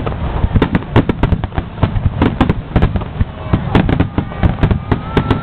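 Aerial firework shells bursting in a dense finale barrage: many sharp bangs a second over a continuous low rumble.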